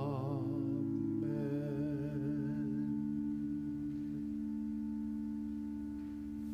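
Final chord of a hymn held steadily on a sustained keyboard instrument. A singer's last note, with vibrato, trails off about half a second in, and some lower notes drop out around four seconds in.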